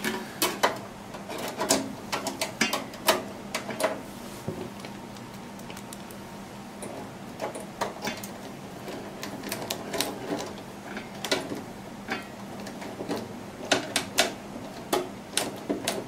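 Phillips screwdriver turning a screw out of a steel PC case's expansion-slot bracket, with irregular small metallic clicks and rattles of screw, screwdriver and slot plates. The clicks come in clusters, sparser about five to nine seconds in.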